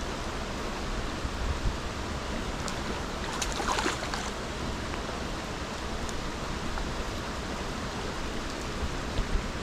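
Small stream's water running steadily, with a short louder burst of noise about three and a half seconds in.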